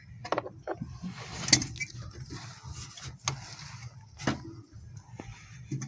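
Light clicks and rustling of hands fitting an H4 halogen bulb into the headlight housing: about seven separate small clicks, with a soft rustle between about one and three seconds in.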